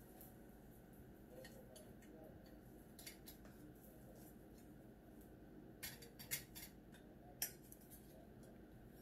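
Faint, scattered clinks and scrapes of a spoon against a metal rice pot and dishes as rice is served, with a cluster of sharper clinks past the middle.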